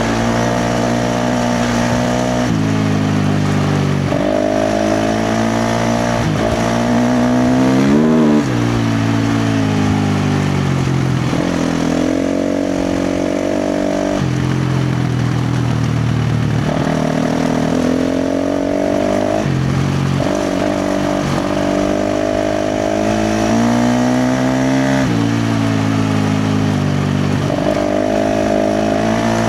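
KTM 350 XC-F dirt bike's single-cylinder four-stroke engine under hard throttle, its pitch climbing and then dropping back again and again as the rider shifts through the gears. A quick rev rises and falls about eight seconds in.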